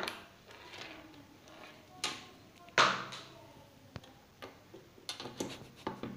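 Clicks and knocks of lead-wire plugs being fitted into the output sockets of a TENS–ultrasound combination machine, with handling of the cables. The loudest knock comes about three seconds in, and a run of quick clicks follows near the end.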